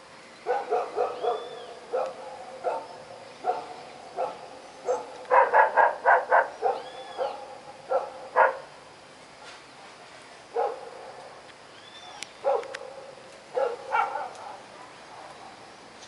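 A dog barking in short repeated barks: a quick run of them about five seconds in, then scattered barks after a brief lull.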